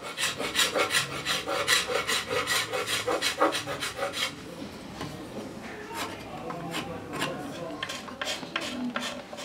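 A hand tool scraping and rasping along a wooden rail in quick, even strokes, about four a second. After about four seconds the strokes become softer and more spaced out.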